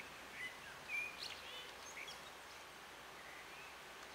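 A small bird gives a few short chirps and whistles in the first two seconds, the loudest about a second in, over a faint steady outdoor hiss.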